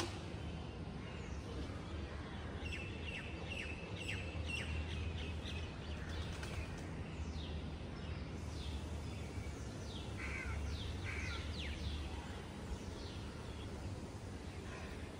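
Birds calling outdoors: crows cawing, mixed with many quick falling chirps from smaller birds, over a steady low background rumble.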